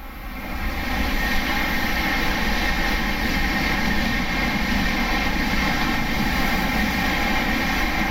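E5 series Shinkansen passing through the station at speed without stopping: a loud, steady rushing noise that builds over the first second and then holds.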